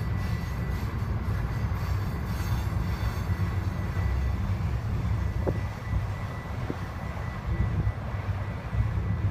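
Freight train cars rolling past at close range: a loud, steady rumble of wheels on rail, with a thin, steady high-pitched wheel squeal above it and a few light clicks.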